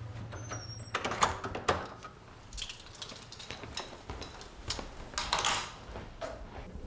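Light clicks and knocks of small objects being handled: a quick cluster about a second in, a few softer ones later, and a brief scratchy sound past the halfway mark.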